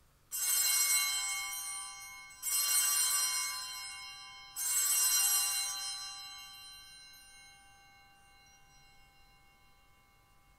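Altar bells rung three times, about two seconds apart, each ring a bright cluster of high tones that fades away, the last ringing out longest. The ringing marks the elevation of the chalice after the consecration at Mass.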